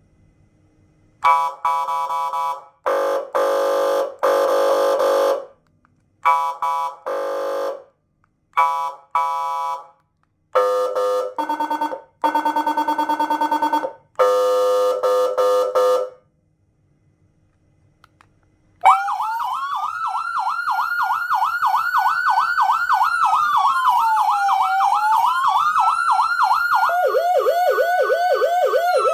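X5 400-watt dual-tone electronic siren sounding through its speakers. First comes a series of short, steady-pitched blasts with pauses between them. After a brief silence, about two-thirds in, a wail starts that rises and falls slowly, and near the end a second, lower, fast-warbling tone joins it, so two siren tones sound at once.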